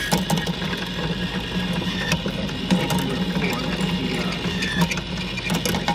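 Ball motor of a 1964 United (Williams) ball bowler arcade game running with a steady hum, driving the ball lift, with scattered clicks and knocks from the lift mechanism.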